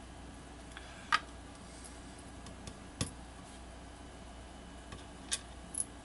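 A handful of sharp little clicks and taps a second or two apart: small metal lock pins and a thin pick tool knocking against a pin-tumbler lock core and a plastic pinning tray as the core is emptied.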